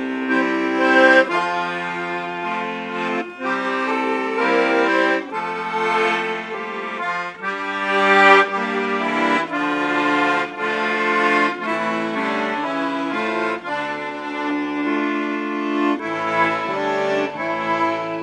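Piano accordion playing a slow, solemn tune, a melody over held chords.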